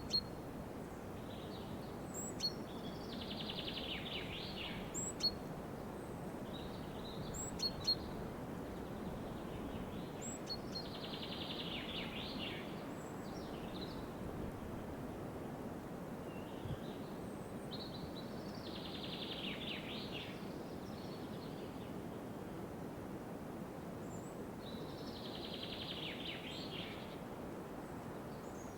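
Forest ambience: a songbird repeats a trilled song phrase about two seconds long, roughly every seven seconds, over a steady background hiss. Short, high single chirps come from other birds, mostly in the first few seconds.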